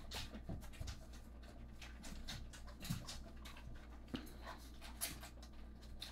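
Labrador puppies nursing from their mother and lapping gruel from a metal feeding dish: faint, irregular smacking, slurping and small clicks.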